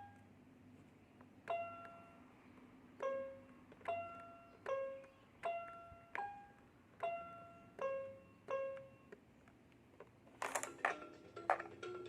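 A children's toy musical instrument played one note at a time, about ten clicky pitched notes at several pitches, each under a second apart. Near the end comes a louder quick flurry of clicks and notes.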